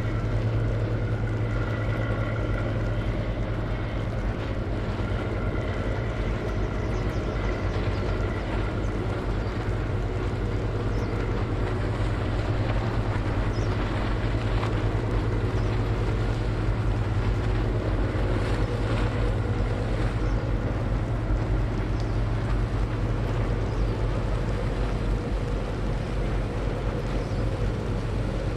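Steady low drone of a sand barge's diesel engine, with a few higher steady tones over it.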